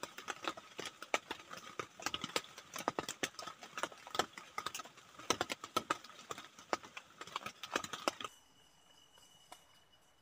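Rain drizzling on a tent, heard from inside as many irregular light taps on the fabric. The taps stop abruptly about eight seconds in, leaving a faint steady high insect trill.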